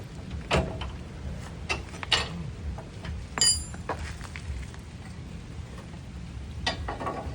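Metal clinks and knocks from hand tools and suspension parts being handled, about half a dozen scattered strikes, one ringing briefly about three and a half seconds in, over a steady low rumble.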